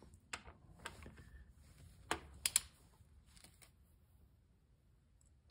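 A click-type torque wrench working a connecting-rod nut: a string of sharp, irregular metal clicks, two louder ones about two seconds in, as the rod bolts are brought up to 50 ft-lbs.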